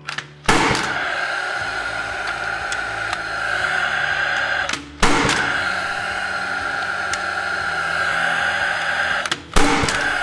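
Rawlplug R-SC40II gas-powered nailer firing three times into concrete, driving nails through pipe clips. Each sharp shot is followed by a steady whir of the tool's fan running for several seconds.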